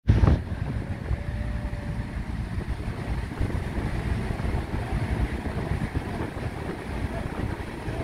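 Wind buffeting the microphone in a low, uneven rumble, opening with a brief loud knock as the recording starts.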